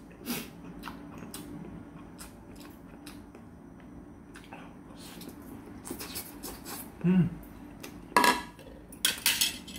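Eating sounds of a man biting and chewing a piece of fish cake: small wet mouth clicks, then a short hummed 'mm' about seven seconds in. Near the end his metal chopsticks clink and clatter against the stainless steel soup pot, with one ringing clink.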